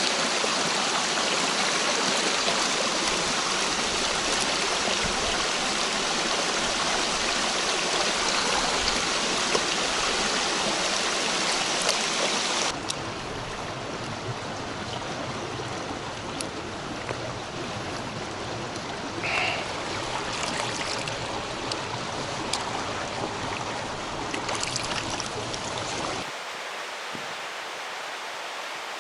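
Mountain stream rushing steadily over rocks. The sound drops abruptly to a quieter rush about 13 seconds in, and again near the end.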